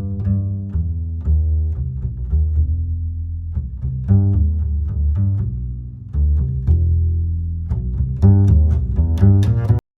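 Background music played on low strings, double bass and cello, with a run of repeated low notes; it cuts off suddenly near the end.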